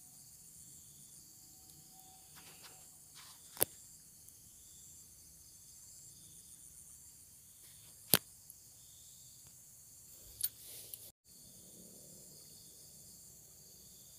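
Steady high-pitched chorus of insects chirring, with a pulsing note repeating about once a second. Two sharp clicks, about four and a half seconds apart, stand out as the loudest sounds, and the sound breaks off briefly a little after the middle.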